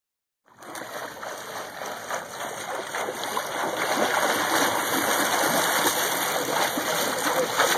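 Water splashing and churning as a swimmer kicks on her back, starting after a moment of silence and continuing steadily.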